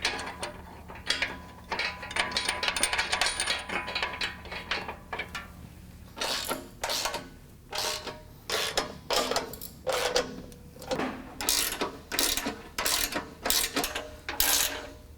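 Hand ratchet wrench clicking as the locking nut is run onto a bumper mounting bolt and tightened: a fast run of clicks for the first few seconds, then slower, separate strokes about two a second.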